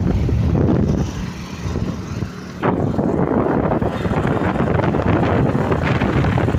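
Wind buffeting a phone microphone over the rumble of a moving road vehicle, easing for a moment about a second in and picking up again shortly after.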